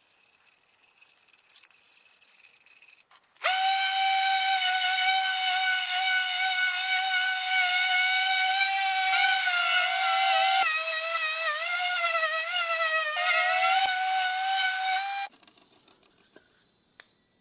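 DeWalt random orbital sander running on a purpleheart cutting board: a steady high whine that starts abruptly about three seconds in, wavers in pitch for a few seconds partway through, and cuts off sharply near the end.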